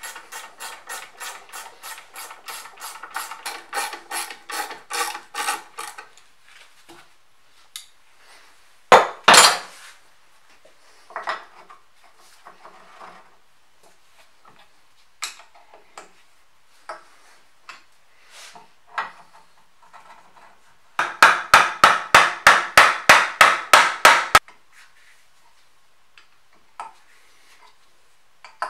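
Ratchet wrench clicking as a bolt is tightened, about three or four clicks a second for several seconds. A single loud metal knock follows, then scattered small knocks and handling of metal parts, and later a second, louder run of rapid clicks of the same kind.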